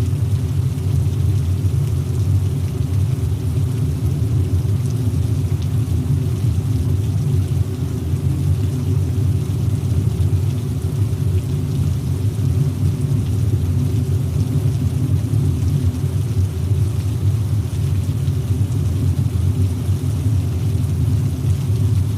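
Car driving on a wet highway in the rain: a steady low rumble of engine and tyre noise, with a faint hiss of rain and spray over it.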